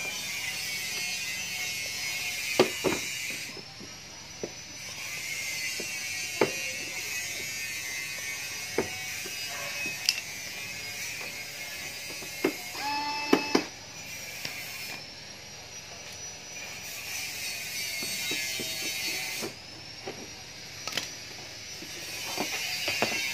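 Cordless electric screwdriver running in several runs of a few seconds each, a high motor whine that rises as each run starts, driving out the screws of a plastic battery cover. Scattered sharp clicks and knocks fall between the runs, with a quick burst of ratcheting clicks about halfway through.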